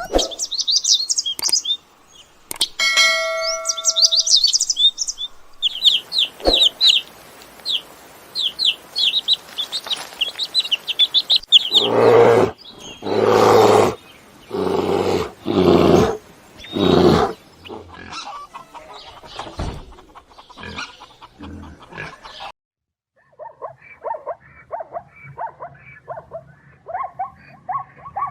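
A run of different animal calls: rapid high chirping, then about five loud, drawn-out low calls, then fast chattering near the end.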